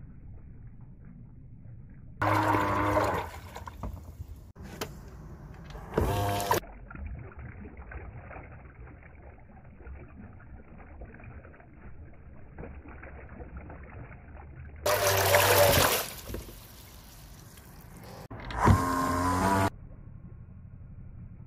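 Brushed RC motor with a fan blade, running submerged in a tub of water, throttled up in four short bursts of about a second each; each burst is a motor whine mixed with churning, splashing water. Between bursts a lower, steady churning noise.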